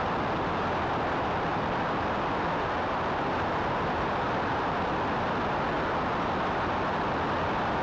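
Steady rush of wind and engine noise from a Cessna 172 in cruising flight, picked up by a camera mounted on the wing. It is an even, unchanging roar with no distinct pitch.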